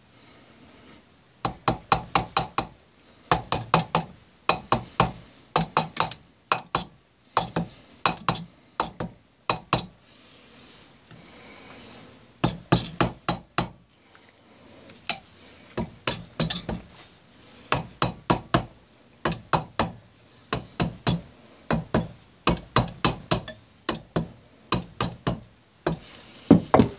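Hammer tapping the cylinder block of a Honda Rebel 250 twin down over its pistons, in quick runs of three to six taps with short pauses between, easing the cylinders past the piston rings.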